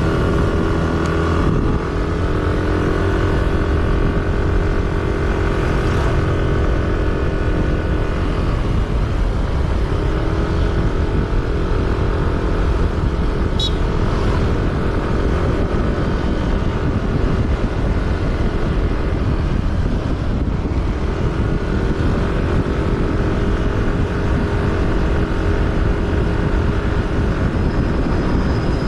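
A road vehicle's engine running on the move over a steady low road and wind rumble. The engine note drops away twice, about nine and twenty seconds in, and comes back with a short rise in pitch.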